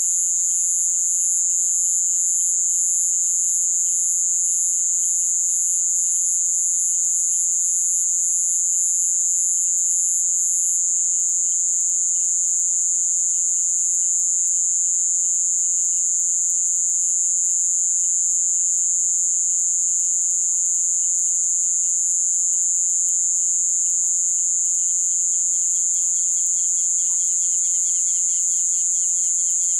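Amazon rainforest night chorus of insects: a loud, steady, high-pitched trill, with a second, higher insect call pulsing about twice a second that stops about a third of the way in. Fainter calls, likely frogs, chirp underneath.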